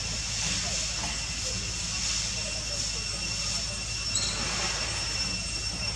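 Steady forest background: a constant high hiss with two steady high-pitched whining tones over a low rumble, and one short high chirp about four seconds in.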